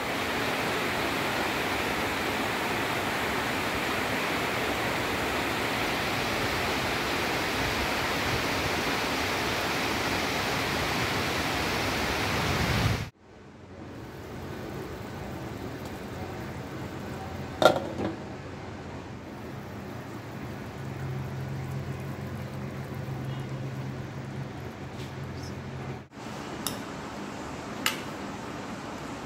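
Food frying in a cooking pot, a steady loud sizzle that cuts off abruptly about thirteen seconds in. It is followed by a quieter simmer with one sharp clink and a few small clicks near the end.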